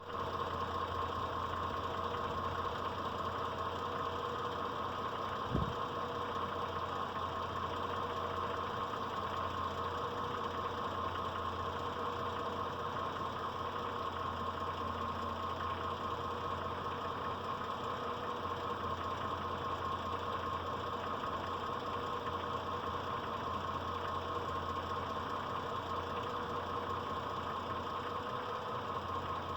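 Mitsubishi Pajero 4's 6G72 3.0 V6 petrol engine idling steadily with a knock that the owner likens to diesel clatter. A single short thump about five and a half seconds in.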